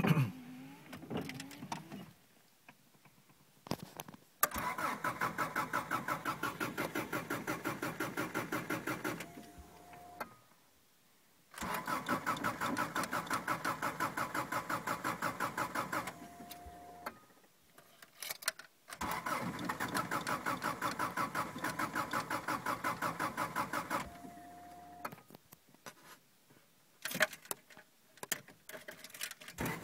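Subaru EJ20G turbo flat-four cranked on the starter three times, about five seconds each with a fast even beat, without catching; each attempt ends with a short steady tone. A hard cold start, which the car gives every cold morning while it starts fine once warm; it goes with check-engine code 24, the idle air control valve code.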